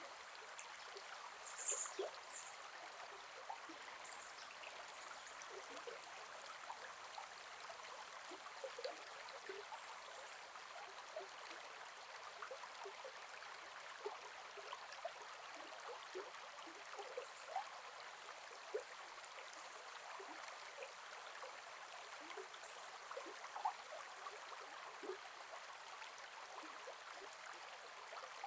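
Gentle forest river flowing: a steady, faint rush of water with many small gurgles and drips scattered through it. Two brief high chirps stand out about two seconds in.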